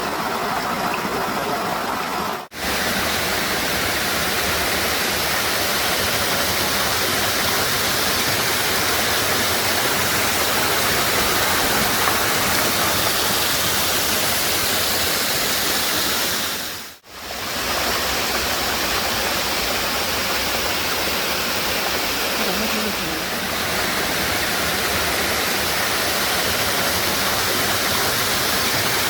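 Waterfall: a steady, loud rush of falling water, cut off briefly about two and a half seconds in and again about seventeen seconds in.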